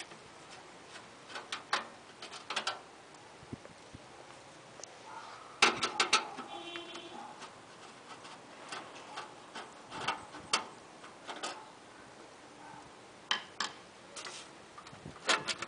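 Scattered clicks and knocks of hands and tools working a desktop PC case to free its sheet-metal motherboard tray, with a louder cluster of knocks about six seconds in followed by a brief squeak.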